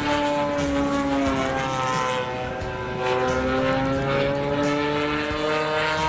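Zlin 50LS scale model plane's 40 cc MVVS two-stroke petrol engine running in flight with its propeller. The engine note sinks over the first two seconds, drops a little in loudness, then climbs steadily again as the plane turns and passes.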